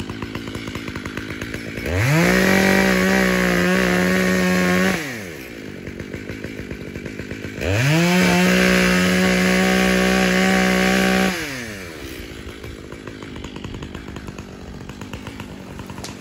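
Two-stroke Makita (Sachs Dolmar) chainsaw idling, then twice run up to full throttle for about three seconds each while cutting through a small tree. It drops back to idle between the cuts and after them.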